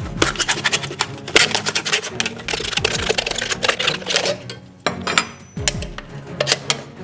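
Rapid, irregular rattling and clicking of folded paper entry slips being shaken and mixed by hand in a container, followed by a few separate knocks.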